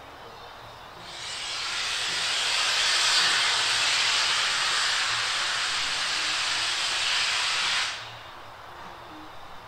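Steam locomotive letting off steam: a loud, steady hiss that swells up about a second in and stops abruptly about eight seconds in.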